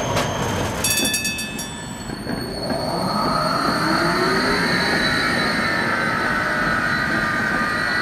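Electric tram pulling away, its traction drive whining and rising in pitch as it speeds up before levelling off, over the rumble of wheels on the rails. A brief metallic clatter with a high ringing comes about a second in.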